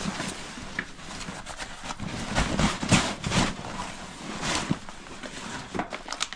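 Rustling of fabric and soft knocks as a military duffel bag is handled, turned upside down and its clothes tipped out onto a table; the loudest rustles come a little under three seconds in.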